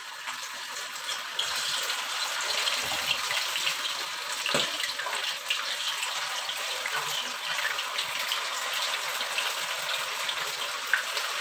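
Flour-coated chicken pieces sizzling in hot oil in a wok as they are dropped in to deep-fry: a steady frying hiss full of small crackles, which gets louder about a second in as more pieces go in.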